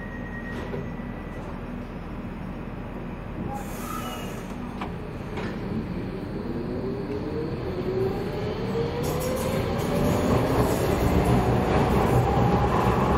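Docklands Light Railway train pulling away from a station, heard from inside the front car. The traction motors' whine rises steadily in pitch as it accelerates, and the rumble of the wheels on the rails grows louder.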